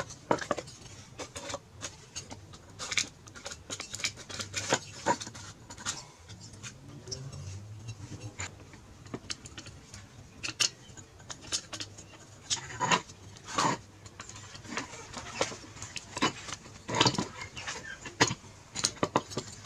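Irregular metallic clinks and knocks of hand tools and the metal parts of a small two-stroke weed eater engine being handled and worked on with a screwdriver during a tear-down.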